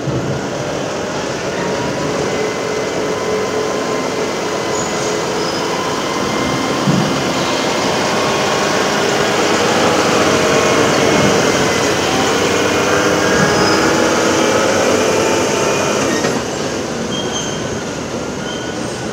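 Steel tracks of a Caterpillar 349E tracked excavator moving, a steady grinding rumble with squeals from the track chains and rollers over the running engine. It eases off a little about 16 seconds in.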